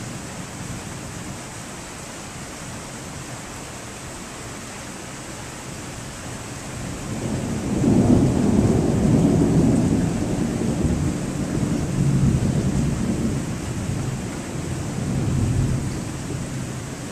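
Rolling thunder over a steady hiss of rain. The low rumble builds about halfway through, swells a couple more times, and fades near the end.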